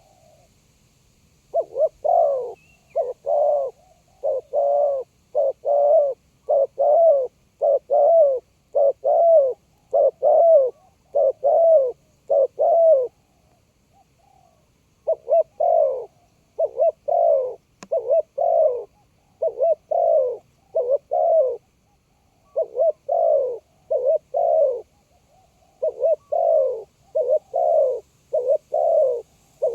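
Spotted dove cooing: a long run of short, low coo notes, one or two a second, broken by two brief pauses.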